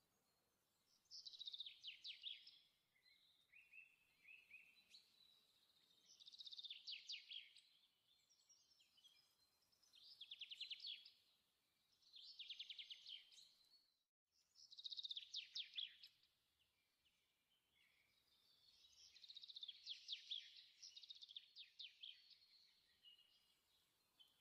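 Faint songbird singing short, high trilled phrases, one every two to three seconds.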